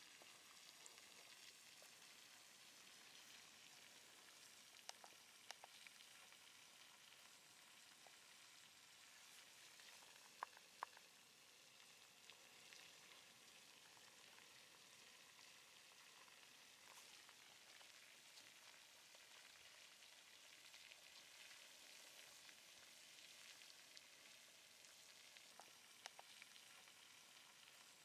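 Flowing basaltic lava giving a faint, steady crackling sizzle as its cooling crust splits and shifts. A few sharp cracks stand out, two of them close together about ten seconds in.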